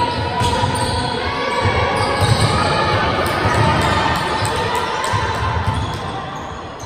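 Basketballs bouncing on a hardwood court in a large sports hall, short repeated knocks over the general din of play, with players' voices calling.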